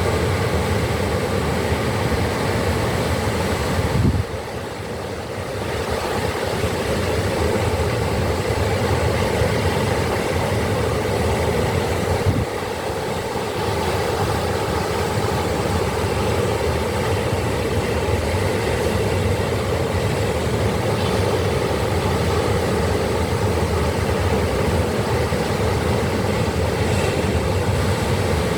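Ocean surf: a steady rush of breaking waves, dipping suddenly about four seconds in and again about twelve seconds in before building back.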